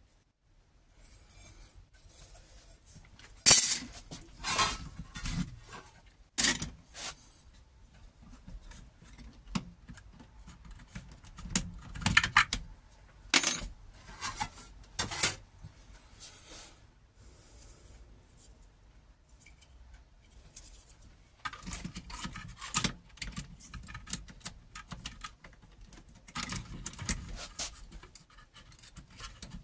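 Irregular knocks, clicks and light metallic clinks of objects being handled on a workbench, with soft rustling between them.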